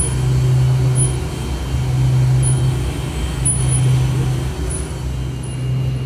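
A deep, pulsing low drone, swelling for about a second and dropping back roughly every second and a half, with a faint high tick at the start of each swell.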